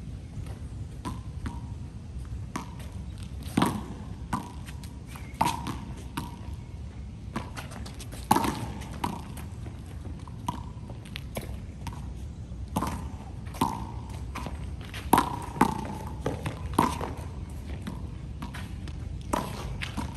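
A handball rally: a hard rubber handball slapped by hand and bouncing off the concrete ground and wall, an irregular string of sharp smacks, many with a short ringing ping after them.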